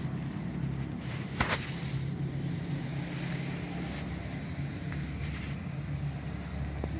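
Steady low drone of motor-vehicle traffic, with a single sharp knock about a second and a half in.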